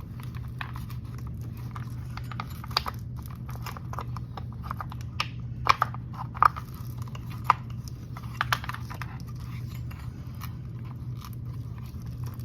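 Scattered small clicks and knocks of hand work on an RC truck chassis as the chassis brace is slid in and fitted, a handful of sharper taps among them.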